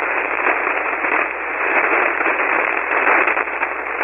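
Steady hiss of band noise from a ham radio transceiver receiving 40-metre single sideband, an even rush held inside the narrow voice passband of the receiver's filter.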